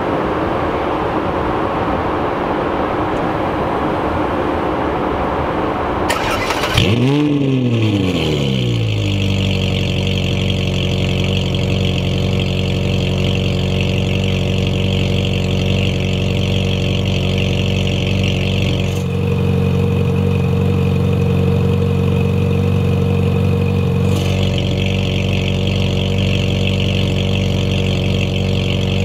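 Ferrari 458's flat-plane V8 starting through an IPE Valvetronic exhaust: it fires about six seconds in, flares up in revs and falls back, then settles into a steady, loud idle.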